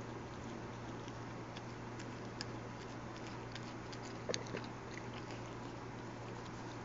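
Virginia opossum chewing food: scattered small clicks and smacks, with a sharper pair of clicks about four seconds in, over a steady hiss and low hum.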